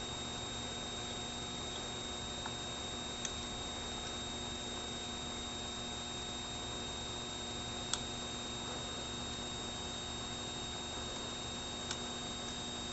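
Steady electrical hum with a faint high whine, broken by four small, light clicks of small metal tools being handled in a toolbox drawer; the sharpest click is about eight seconds in.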